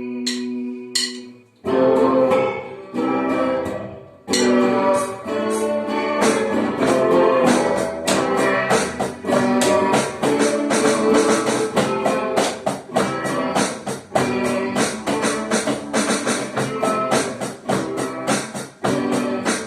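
Instrumental intro of a band song: a held chord with a few sparse clicks about a second apart, then guitar and steady drums with tambourine coming in about two seconds in. There is a brief drop-out around four seconds, and then the band plays on.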